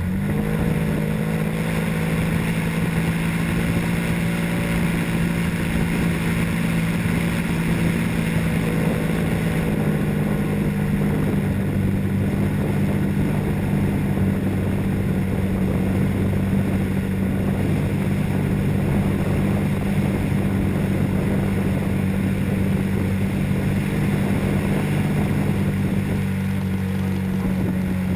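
Radio-controlled model airplane's motor and propeller running steadily in flight, heard up close from a camera mounted on the plane, a steady hum over a rush of air. The tone shifts slightly about ten seconds in.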